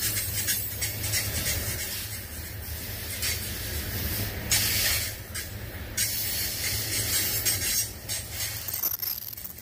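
Freight train rolling past: a steady rush of wheel-on-rail noise with irregular clicks and a low rumble underneath, loudest about halfway through.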